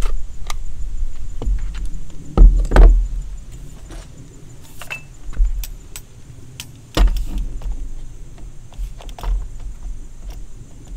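Clicks, clacks and knocks of a plastic cordless mini chainsaw head being handled and slid onto its pole mount, with heavier knocks about two and a half seconds in and again about seven seconds in.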